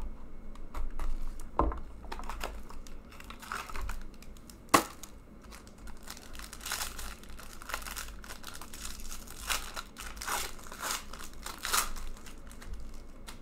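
Foil trading-card pack being torn open and crinkled by hand, with scattered clicks and one sharp snap about a third of the way in.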